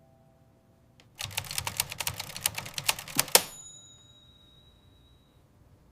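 A rapid run of clicks for about two seconds, ending in a sharp strike and a bell-like ding that rings out and fades over about two seconds.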